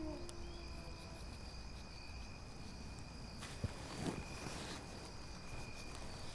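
Crickets chirring steadily at night. A long held tone trails off in the first second, and a soft paper rustle comes about four seconds in.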